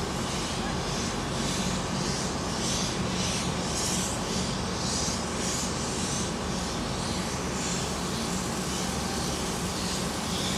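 Steam locomotive R766, a two-cylinder 4-6-4 R class, chuffing steadily as it pulls away light engine, a little under two exhaust beats a second, over a steady low hum.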